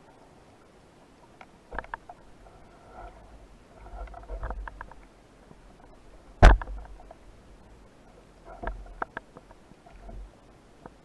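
Speargun fired underwater: one sharp, loud crack about six and a half seconds in. Fainter clicks and low water rushes from the diver's movements and gear come before and after it.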